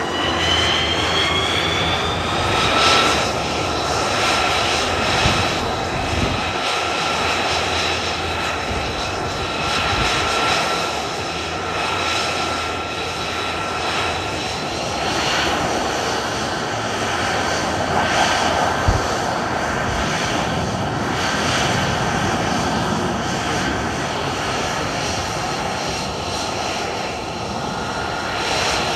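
F-35 fighter's F135 turbofan running at ground idle, a steady jet rush with several high-pitched whining tones that rise over the first few seconds and then hold level. One brief sharp crack comes about two-thirds of the way in.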